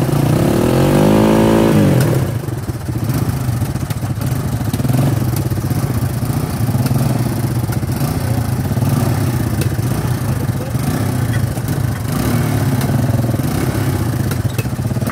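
Small ATV engines running together as a four-wheeler tows a Honda Big Red three-wheeler stuck in mud on a strap. One engine revs up and drops back about two seconds in, then they run on steadily under load.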